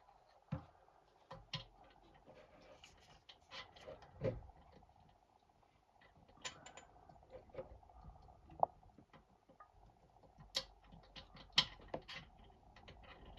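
Small socket tool turning a new glow plug into a Chinese diesel heater. Metal clicks and taps come at irregular intervals, a few sharper ones in the second half.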